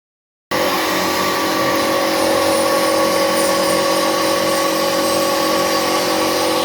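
Rice flour milling machine running steadily at full speed: a loud, even machine sound with a few fixed tones over a hiss. It cuts in abruptly about half a second in.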